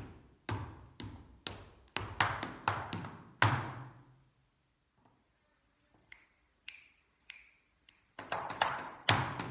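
Sean nós dance steps in reel time: hard-soled shoes striking a wooden floor in a quick rhythmic pattern of taps and stamps, each strike trailing off in the room's echo. About four seconds in the dancing stops, leaving only a few faint scuffs and clicks, and the taps start again near the end.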